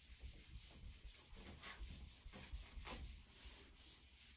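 Whiteboard eraser rubbing across a whiteboard in repeated wiping strokes, faint.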